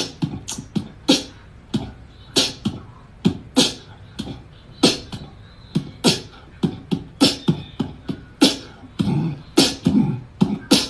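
Beatboxing: sharp mouth clicks and low kick-like thumps in an uneven beat, about two to three a second.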